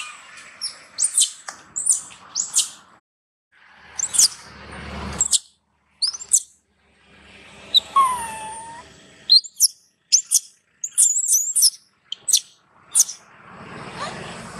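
Juvenile long-tailed macaque crying in short, high-pitched squeals, over and over, with a lower wavering cry about eight seconds in. These are the begging cries of a young monkey being weaned, pleading with its mother for milk.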